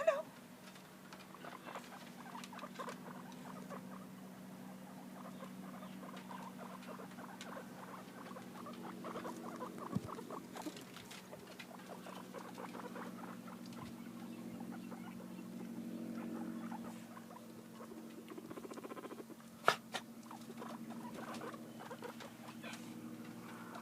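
Small pet animals moving about: a light, scattered patter of feet with small rodent sounds from the guinea pig, over a steady low hum. Two sharper knocks stand out, about ten seconds in and just before twenty seconds.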